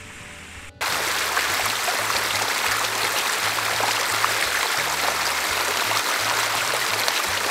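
Small forest creek running over rocks, a steady rush of water that starts abruptly about a second in.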